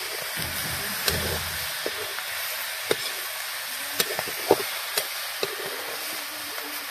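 Snail meat, onion and tomato sizzling in oil in a steel kadai, with a metal spoon clinking and scraping against the pan as the food is stirred; sharp clinks about a second in and several more between about three and five and a half seconds.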